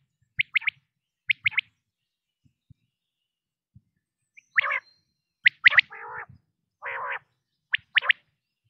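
Quail calling, a hunting lure call: quick three-note phrases of sharp high whistles, two phrases in the first second and a half, then, after a pause of about three seconds, more three-note phrases mixed with lower, rougher calls.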